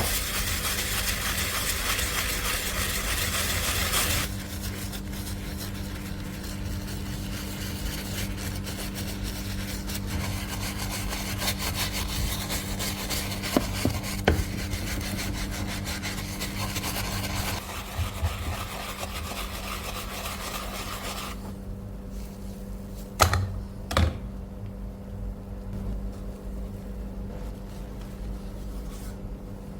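Scraping and rubbing of hand work on a workpiece, loud and dense for the first few seconds, then quieter over a steady low hum, with a few sharp knocks.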